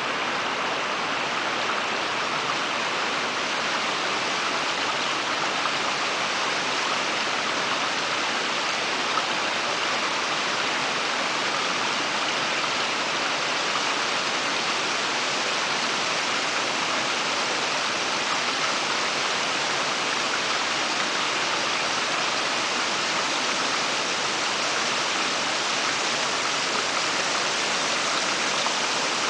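Small rocky creek spilling over stone ledges in little cascades: a steady rush of running water.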